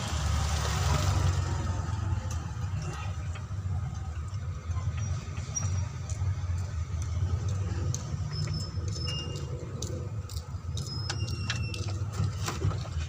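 Hand tools clicking and clinking on metal while the fan clutch is being unbolted, with a few short high metallic pings, over a steady low rumble.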